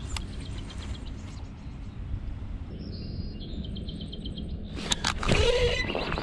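Wind rumbling on the microphone, with birds chirping, then about five seconds in a sudden loud burst of rustling and knocking. This fits a hookset on a punching rig, the rod ripping the line and bait up through a thick mat of water hyacinth.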